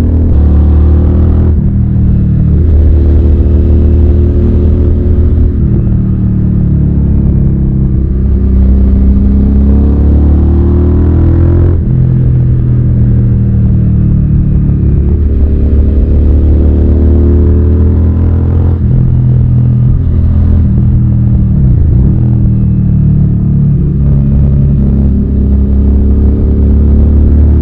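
Suzuki SV650's V-twin engine pulling hard through the gears. The revs climb steadily and then drop back at each of several upshifts, with a quick dip and recovery in revs about three quarters of the way through.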